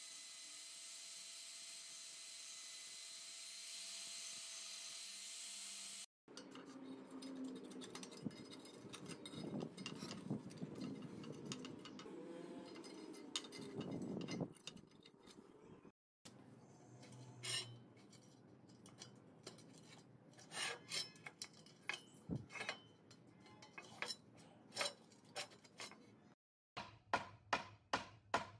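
Steady hiss at first, then fingers rubbing, scraping and prying at the rusted metal socket and collar of an old grub hoe head, with loose rust flakes clicking. Near the end come quick repeated knocks, about three a second.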